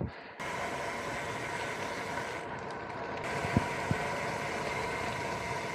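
Air hissing steadily out of a punctured tubeless road-bike tyre, with two short knocks a little past halfway.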